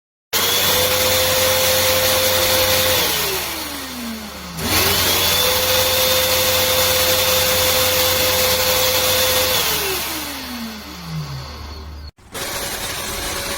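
BeamZ RAGE1800SNOW snow machine's blower motor running at full speed with a loud, steady whine. It spins down after about three seconds, starts up again at once and runs about five seconds more before winding down again. After a brief cut near the end it is running steadily again.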